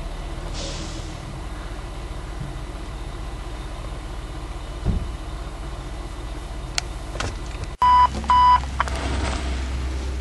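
Fire engine's diesel engine idling as a steady low hum, first muffled through a car's windshield, then louder and open after a cut about eight seconds in. Right after the cut, two short, flat electronic beeps sound in quick succession.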